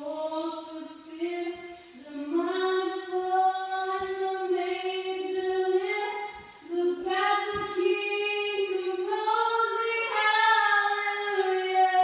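A young woman singing a cappella in an empty house with lively acoustics, holding long notes with short breaks between phrases. By her own account she sings from the throat here rather than in a register that spares the voice.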